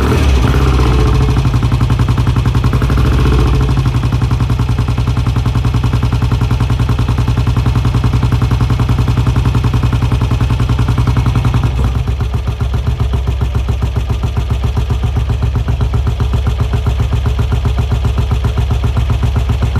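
1967 BSA Lightning's 650 cc parallel-twin engine running just after a cold start, at a fast idle. About twelve seconds in, the note drops and settles into a slower, steady idle with distinct exhaust pulses.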